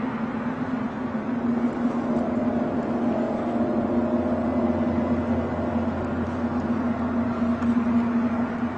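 Steady, loud droning hum with one strong low tone and a deeper rumble that swells midway: the unexplained 'strange sound' from the sky, a hum strong enough to be felt as vibration.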